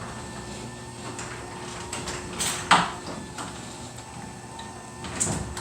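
Newly installed garage door opener running with a steady hum as it drives the door along its track, with a loud clank about two and a half seconds in and a smaller knock near the end.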